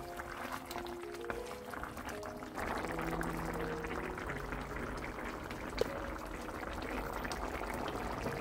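Thick red jjageuli stew simmering in a frying pan, bubbling and popping, with gentle background music over it. The bubbling grows louder about two and a half seconds in.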